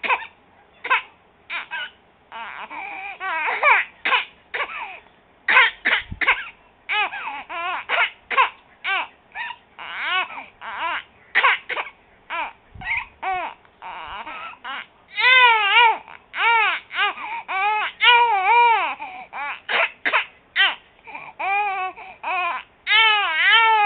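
Three-month-old baby crying in short, choppy, cough-like bursts. From about two-thirds of the way in, the bursts turn into longer cries whose pitch rises and falls.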